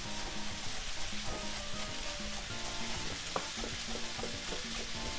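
Steady sizzle of a frying pan of linguine with garlic, chilli and red pepper in olive oil, heating on the hob. A few faint knife taps on a plastic chopping board come in from about the middle as parsley is chopped.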